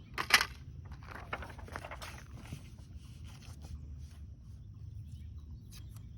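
A sharp clack about a third of a second in, then a series of fainter clicks and rustles: a paper target being stapled to the target frame and handled, with tape being worked over a bullet hole.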